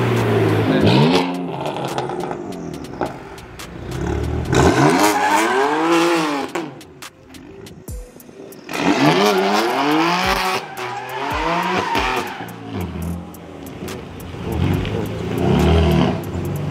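BMW M3's twin-turbo inline-six revving hard, its pitch swinging up and down several times as the car spins its rear tyres in a slide, with tyre squeal. There is a brief lull about seven seconds in.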